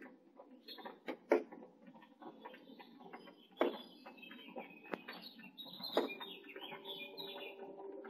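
House finches at the nest: high chirping calls that grow busier from about halfway through, over scuffing knocks as the adult finch moves about on the nest.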